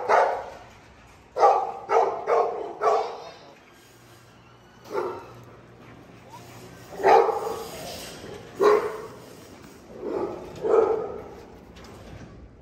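American bully dog barking repeatedly: a quick run of four barks, then single barks a second or two apart.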